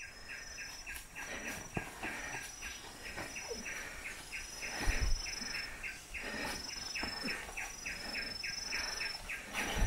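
Forest insects calling: a steady pulsed chirping, about three pulses a second, with a thin high note held about half a second and repeated over it. A couple of low thumps, about five seconds in and at the end.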